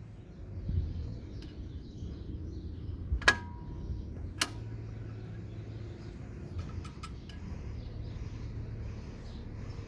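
A few sharp metallic clinks, the first ringing briefly, about three seconds in and again a second later, with lighter ticks near seven seconds, over a steady low hum.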